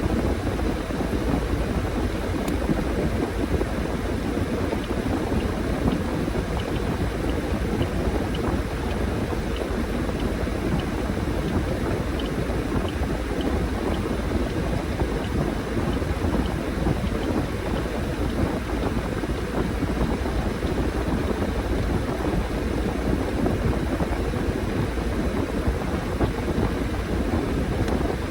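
Washing machine running with an even, unbroken drone, its drum turning the load of laundry.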